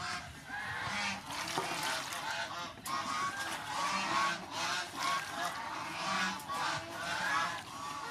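Geese honking repeatedly, short pitched calls every half second or so, with light splashing of water in a metal basin as lettuce and vegetables are rinsed.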